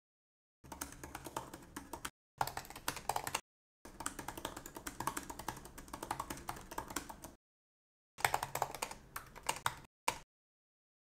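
Typing on MacBook Pro laptop keyboards: rapid key clicks in several bursts, each cut off abruptly, taking turns between a 15-inch MacBook Pro's butterfly keyboard and a 16-inch MacBook Pro's scissor-switch keyboard.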